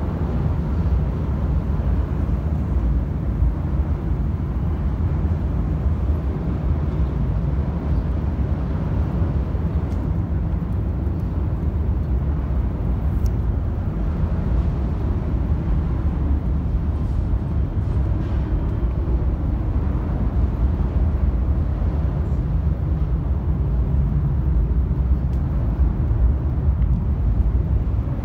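Steady low outdoor rumble with no distinct events, strongest in the bass and unchanging throughout.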